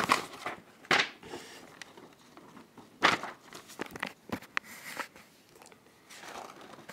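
Paper pages of a spiral sketchbook being handled and turned: a run of short rustles and crinkles, the sharpest about a second in and about three seconds in.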